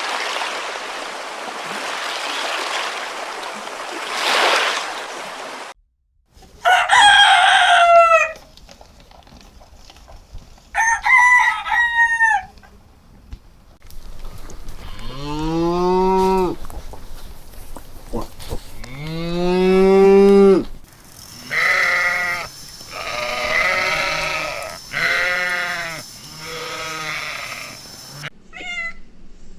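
A steady rushing noise for about the first six seconds, then livestock bleating in a string of separate calls: a few short high cries, two long rising-and-falling bleats, and a run of short bleats near the end.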